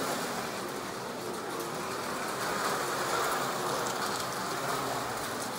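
Carrera Digital slot cars lapping the plastic track: a steady whir of their small electric motors and tyres, swelling a little in the middle.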